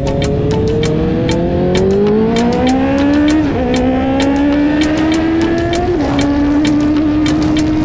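Honda CB650R's inline-four engine pulling hard under acceleration. Its pitch rises through a gear, drops at an upshift about three and a half seconds in, rises again and drops at a second upshift about six seconds in, then holds nearly steady. Sharp ticks are scattered over it throughout.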